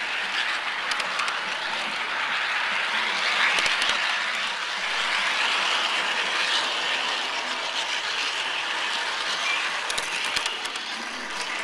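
G scale model train running along the garden track: a steady rolling rattle of wheels on rail, with a few sharp clicks.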